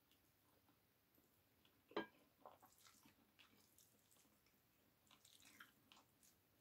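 Faint chewing and small mouth and finger sounds of someone eating chicken wings and rice by hand, with one sharp click about two seconds in.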